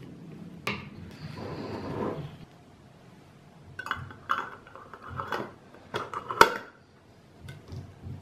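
A wooden spoon scraping through thick chilli sauce in a glass jar, then a twist-off lid set on the glass jar and screwed shut with a run of clicks and clatters, the loudest about six seconds in.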